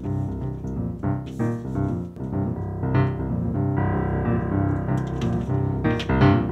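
Background film-score music led by piano, with notes struck every half-second to second over a steady low accompaniment.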